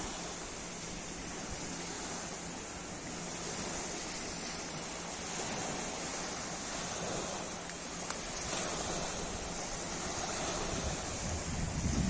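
Small waves washing steadily against the shore, with wind blowing across the microphone.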